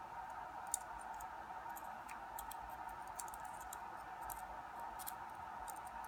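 Faint, scattered small clicks and scrapes of a lock pick probing a lock's pin chamber, trying to hook out a stuck spring, over a steady faint hum.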